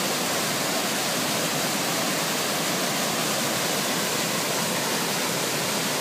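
Mountain stream cascading through a narrow rock gorge: a steady, unbroken rush of white water falling and splashing between boulders.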